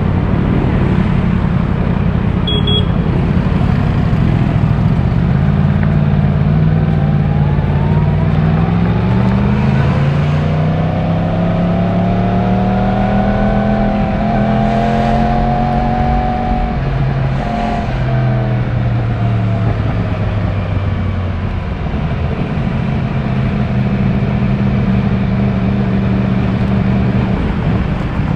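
Yamaha YZF-R1's 1000 cc inline-four engine through its stock exhaust, under way: the engine note climbs gradually from about six seconds in, holds, then falls away again after about seventeen seconds, over steady wind rush.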